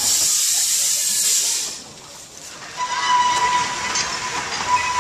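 Steam locomotive on a 2 ft gauge light railway: a loud hiss of escaping steam for about the first two seconds, then, from about three seconds in, a long steady high whistle at one pitch.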